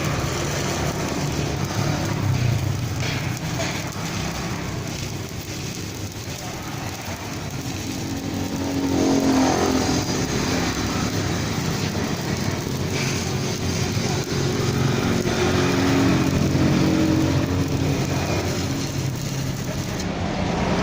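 Stick (MMA) welding arc from a Jasic inverter welder, sizzling and crackling steadily as a rod is burned along the joint, dipping a little in the middle and then running louder.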